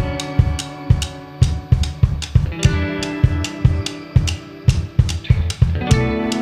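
A live band playing: electric guitar and bass guitar chords over steady drum-kit hits of kick and snare. The chord changes about two and a half seconds in and again near the end.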